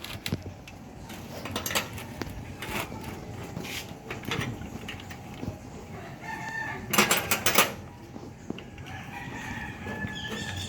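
A rooster crowing in the background, with metal tools or parts clinking and clattering in a cluster about two-thirds of the way in.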